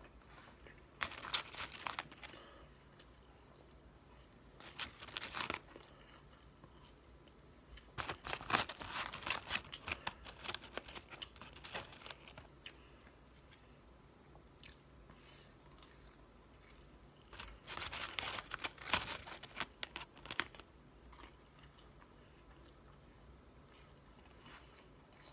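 Close-up chewing of McDonald's fries and fish sandwich, crunching in four bursts with quiet pauses between.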